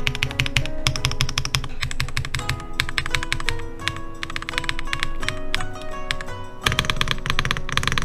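Royal Kludge RK R75 mechanical keyboard being typed on quickly: a dense, uneven run of keystroke clacks, with background music playing along.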